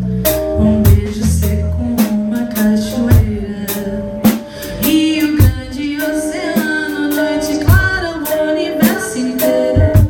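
A small rock band playing live: electric guitars, electric bass and a drum kit, the drums striking on a steady beat over sustained guitar notes, with low bass notes held through the first couple of seconds.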